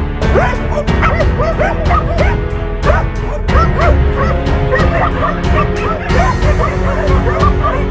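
A pack of hunting dogs barking and yelping over and over as they bay a wild boar standing in water, mixed with background music that has a steady beat.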